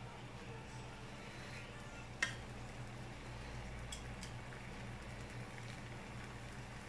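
Metal tongs clicking against a grill pan as raw steaks are shifted, with one sharp click about two seconds in and a few faint ticks later, over a steady low hum.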